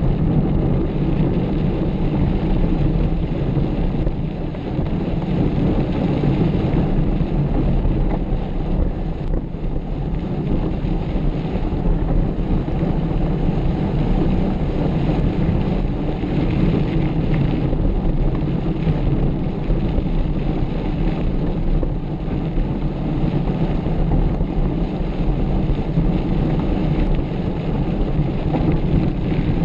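Steady wind rush on the microphone mixed with the rumble of a mountain bike riding at speed over an off-road track.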